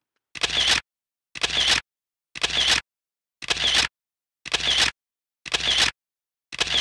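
Camera shutter clicks, seven of them evenly spaced about a second apart, like a run of photo snaps.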